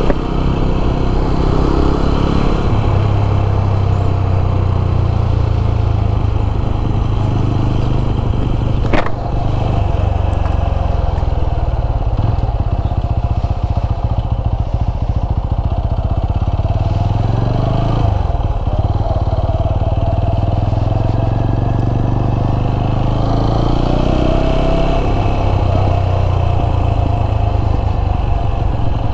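TVS Apache RTR 200 4V's single-cylinder engine running steadily while riding, with a sharp click about nine seconds in and the engine note dipping briefly about eighteen seconds in.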